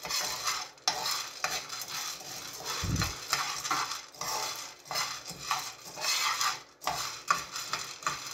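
Spoon stirring coffee beans in a non-stick frying pan: a continuous, uneven rattle of beans and spoon scraping against the pan. The beans are kept moving so they roast evenly as they turn light brown.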